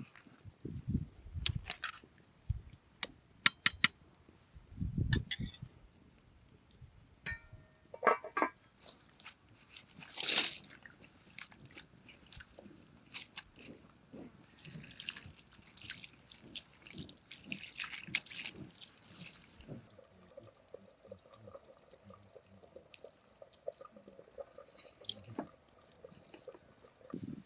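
Water pouring and dripping, among scattered sharp clicks and knocks, with a hissing stretch about halfway through.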